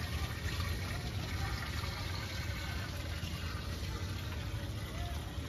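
Water running steadily through a gold-mining sluice trough, with a low steady rumble underneath.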